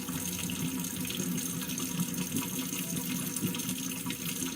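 Kitchen faucet running hot water steadily into a sink with a clogged drain, flushing drain cleaner down.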